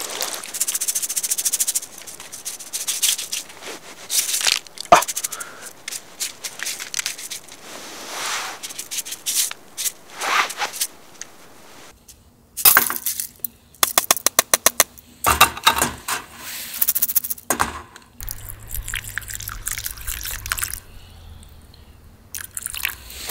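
Water trickling from a water bag's tap onto rice in a mesh strainer, with wet splashing and swishing as the rice is rinsed. About halfway the rice is tipped from the strainer into a stainless steel cup with a quick run of light metallic taps and clicks, and water is then poured into the cup.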